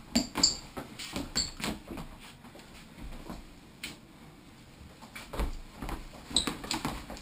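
Irregular knocks and thumps from a small ball and scuffing feet during an indoor ball game, with a few short high squeaks. The loudest knock comes about a quarter of a second in.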